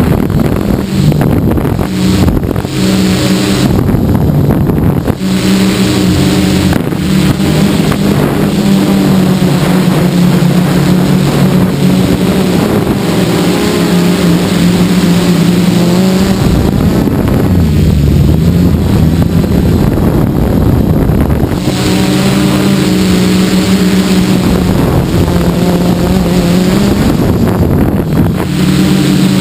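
Gaui 330X-S quadcopter's electric motors and propellers buzzing in flight, the pitch rising and falling with the throttle, with wind noise on the onboard microphone.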